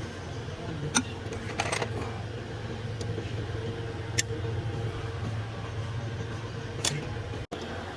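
Small metal tools and parts clinking and tapping a few times, over a steady low hum.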